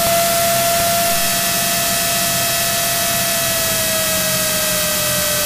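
Cabin noise of a Cirrus SR22 in the landing pattern: a steady hiss of engine and propeller drone, with a faint steady tone that slides a little lower about two-thirds of the way through.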